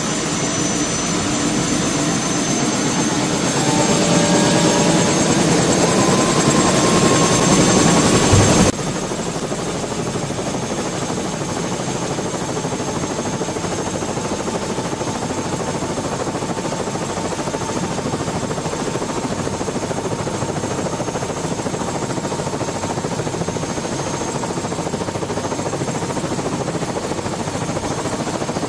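Helicopter running, heard from inside the cabin with a door open: a dense, steady rush of rotor and engine noise. For the first several seconds it is louder, with a slowly rising whine. About nine seconds in it cuts suddenly to a slightly quieter, steadier noise.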